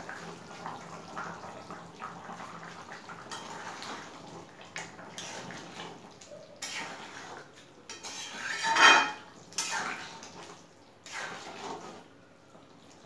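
Metal spatula stirring chicken and potato curry in a metal karahi, scraping and clinking against the pan in a series of strokes. The loudest scrape comes about nine seconds in.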